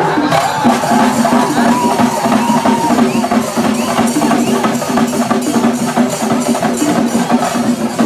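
Loud festival music with fast, dense drumming under a held melodic line, heard from within a large crowd.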